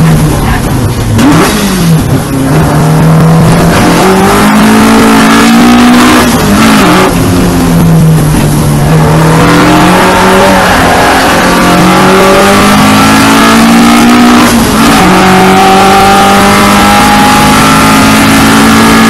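2-litre four-cylinder engine of a 1960s saloon race car, heard onboard at full racing load. The revs climb and fall several times with gear changes and lifts for corners, over a rush of wind and road noise.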